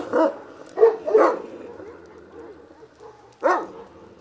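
A dog barking: three barks in the first second and a half, then one more near the end.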